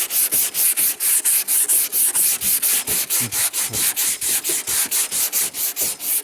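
80-grit sandpaper on a body-shop sanding block, rasping back and forth over cured plastic body filler in quick, even strokes, about five a second. It is the first cut of block-sanding, taking down the high spots that the guide coat shows.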